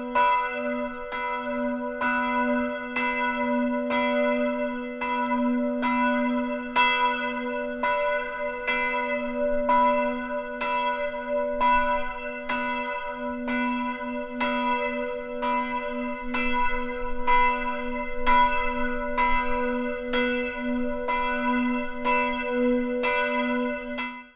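A church bell tolling, struck about once a second, each stroke ringing on over a steady hum. It stops near the end.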